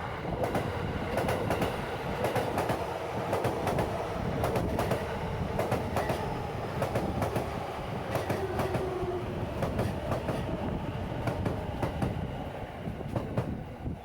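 JR electric train passing over a level crossing: a steady rumble with repeated clacks of the wheels over rail joints.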